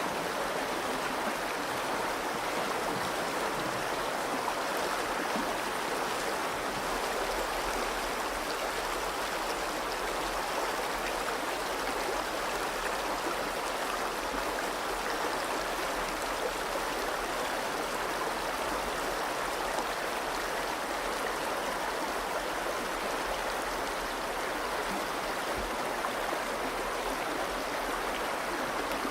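The Virgin River running in a steady, even rush of water.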